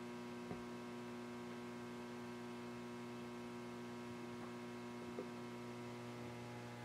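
Faint, steady electrical hum made of several evenly spaced tones, with two tiny ticks about half a second in and a little after five seconds.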